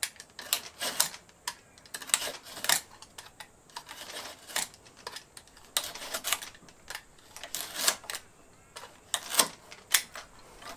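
Irregular light clicks, taps and scrapes of a hand tool pressing a thin 3 mm plywood packer down into a crack in an old timber block, working it below the surface.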